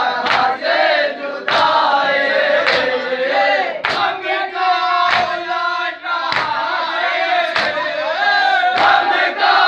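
A crowd of men chanting a noha (mourning lament) together, with chest-beating matam: many hands slapping chests in unison, one sharp slap about every 1.2 seconds.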